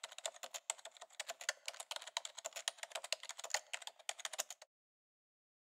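Computer keyboard typing: a quick, uneven run of key clicks that stops abruptly about four and a half seconds in.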